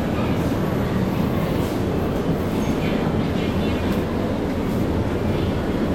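Car ferry's engines running with a steady, heavy rumble, heard from on board.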